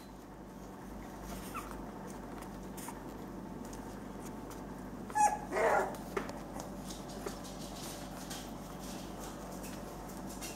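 Young puppies whimpering with faint squeaks, and one louder, short yelping cry about halfway through.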